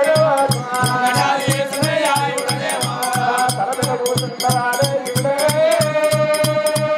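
Telugu folk devotional song: a man singing into a microphone over a steady drum beat, with a sharp rattle or cymbal-like stroke on each beat. The melody wavers, then settles into one long held note near the end.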